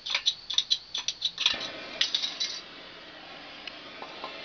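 Gas soldering torch being sparked: about a dozen quick metallic clicks from its igniter, then the torch catches and its flame hisses steadily.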